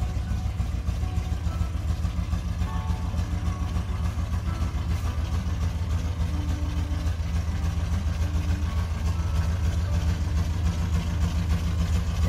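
Rover P6's 3.5-litre aluminium V8, derived from a Buick engine, running at a low, steady idle while the car creeps slowly along.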